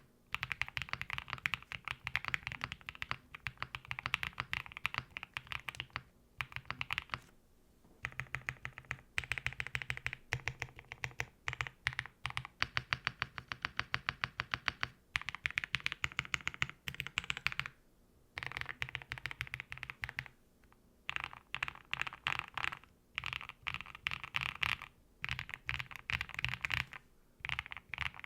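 Typing on a QK65 mechanical keyboard with a custom polypropylene case, foam, long-pole switches and PBT keycaps: fast runs of keystrokes with a deep, bassy thock under the clicks. The runs stop for brief pauses, about seven and eighteen seconds in.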